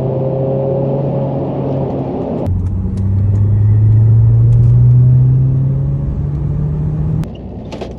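2009 Saab 9-3 Aero's 2-litre turbocharged four-cylinder petrol engine accelerating hard at full throttle in third gear. About two and a half seconds in the engine note drops abruptly, then climbs steadily and grows louder, and cuts back suddenly near the end as the throttle comes off.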